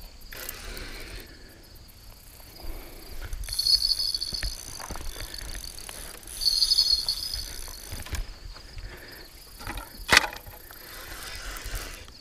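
Carp spinning reel buzzing in two bursts of about a second each, near four and seven seconds in, as line goes through it under a hooked fish. A single sharp knock comes about ten seconds in.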